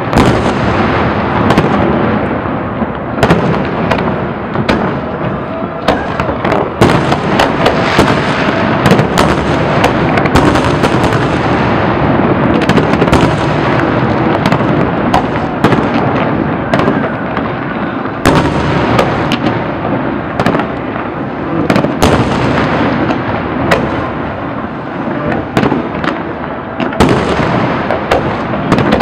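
Fireworks display: a dense, unbroken barrage of aerial shell bursts, many sharp bangs in quick succession over a continuous crackling rumble, with bigger volleys about 6, 18, 22 and 27 seconds in.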